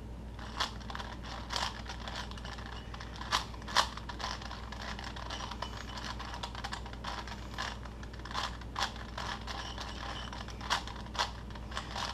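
A Rubik's-type plastic puzzle cube being turned by hand during a solve, its layers making irregular clicks and clacks, some sharper than others. A steady low hum runs underneath.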